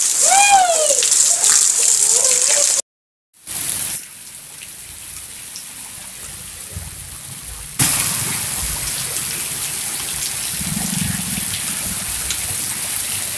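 Heavy rain falling steadily, a continuous hiss that grows louder about eight seconds in. At the start a child's high-pitched squeals, then a short dropout before the rain.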